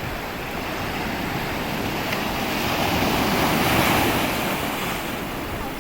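Sea waves breaking on the beach, one wave swelling to a rush about three and a half seconds in and then washing back, with some wind on the microphone.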